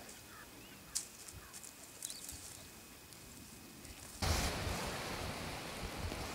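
Faint outdoor quiet with a couple of light clicks, then, about four seconds in, a sudden rumbling buffet of wind on the microphone that carries on.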